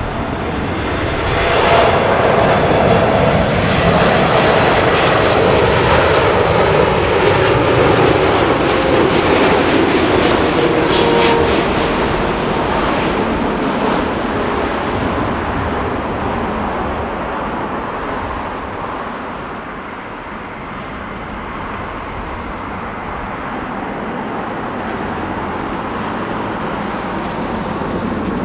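Boeing 747-8 freighter's four GE GEnx-2B turbofans on short final, passing close by: a loud jet roar that swells about a second in, with a whining tone gliding down in pitch as the jet goes past. The roar then fades as it moves off down the runway, and rises somewhat again near the end.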